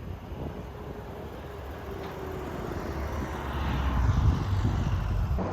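Motor vehicle noise: a low rumble with road noise that grows louder over the second half, like a car passing close by.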